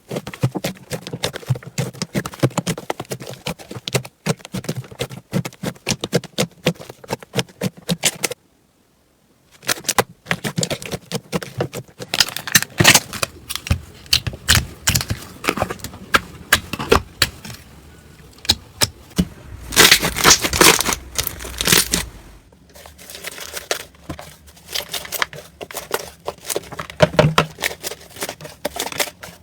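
Slime being squeezed and poked by hand, giving dense crackling pops and clicks. There is a short break about eight seconds in, and a busier, louder stretch of crackling a little past the middle.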